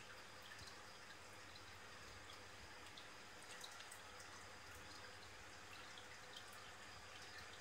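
Near silence: faint, steady water noise from the aquarium's circulation, with scattered soft drip-like ticks.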